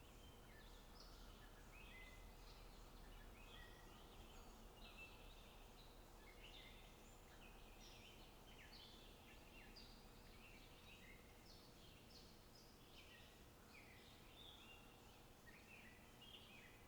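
Small birds chirping and twittering continuously, many short quick notes, faint over a low steady background rumble.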